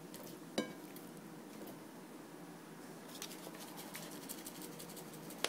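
Faint ticks and rustles of a foil seasoning packet being handled and shaken over raw sirloin steaks: one sharp tick about half a second in, a quick run of small ticks around three seconds in, and another tick at the very end.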